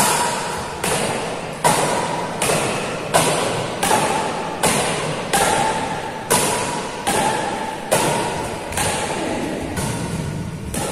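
A steady series of sharp thuds, evenly spaced about one every three-quarters of a second, each trailing off slowly.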